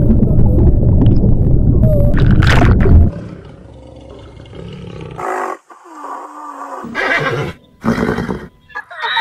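A loud, dense low rumble for the first three seconds, which stops abruptly. After that come quieter scattered animal sounds, and near the end horses neighing.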